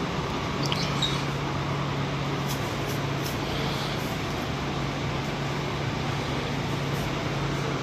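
Steady background noise: an even rushing hiss with a low steady hum under it, and a few light clicks about a second in and again around three seconds in.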